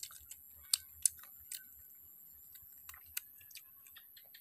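Eating sounds: scattered sharp clicks and mouth smacks as a piece of chicken is chewed and pulled apart by hand, loudest about a second in and again near three seconds. A steady high-pitched hum runs behind them.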